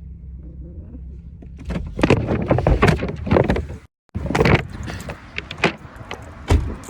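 Getting out of a parked car: a steady low cabin hum, then a car door being opened and shut with loud knocks and rustling from the handheld phone, and one heavy thump near the end.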